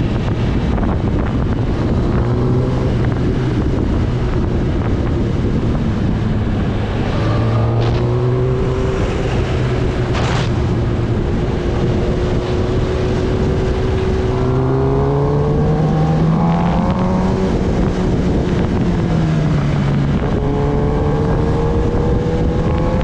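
Kawasaki Ninja ZX-10R's inline-four engine heard from the rider's seat while riding, its pitch holding steady, then climbing in several pulls and dropping back between them, over a steady rush of wind on the microphone.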